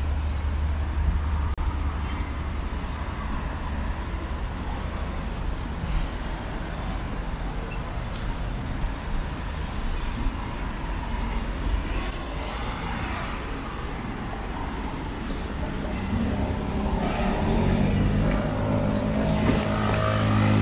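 Road traffic at a city intersection: a steady rumble of passing cars, with a heavier vehicle's engine hum growing louder over the last few seconds.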